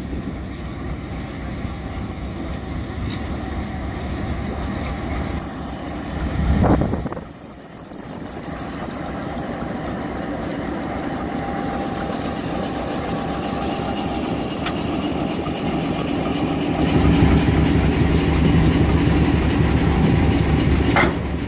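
Diesel-electric locomotive's engine running as the engine moves slowly up to couple onto a passenger train as a banker. The engine sound swells briefly about seven seconds in and grows louder from about seventeen seconds in, with a short sharp sound near the end.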